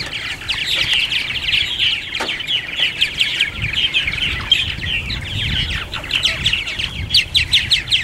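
A colony of purple martins chirping and chattering without a break, many quick high chirps overlapping one another.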